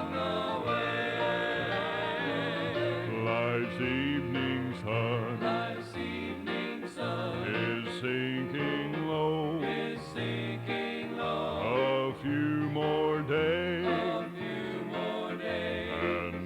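Gospel song played from a cassette tape: singing with vibrato over guitar and a steady bass line, in a country or bluegrass style.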